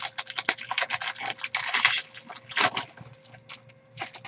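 Quick, irregular crinkling and crackling of a foil trading-card pack wrapper as it is torn open by hand and the cards are worked out of it.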